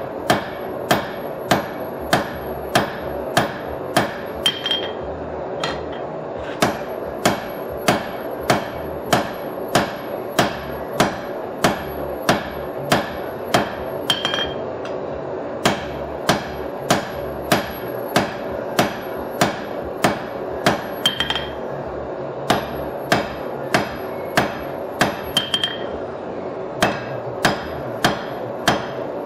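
Hand hammer striking a red-hot steel bar on an anvil, forging a knife blank, at a steady rhythm of about two blows a second. The runs of blows break off four times for a second or so, and several end with a brief high ring.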